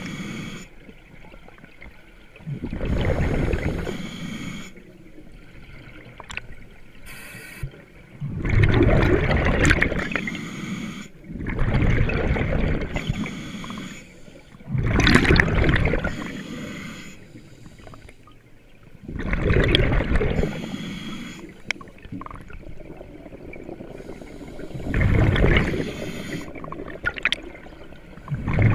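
Scuba diver breathing underwater through a regulator: a burst of exhaled bubbles rumbling and gurgling every few seconds, about six times, with quieter stretches between breaths.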